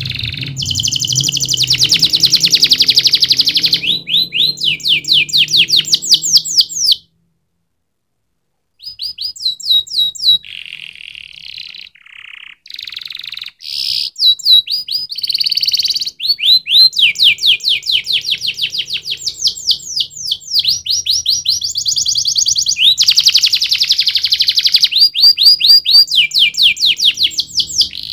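Domestic canary singing: long runs of rapid repeated notes, each sweeping in pitch, rolling into fast trills one after another. The song cuts out completely for nearly two seconds about seven seconds in, then resumes.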